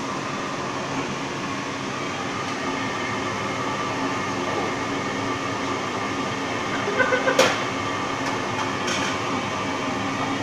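Steady hum of a commercial kitchen's ventilation, the extractor fan running with a few fixed tones in its drone. A short clatter of quick knocks about seven seconds in.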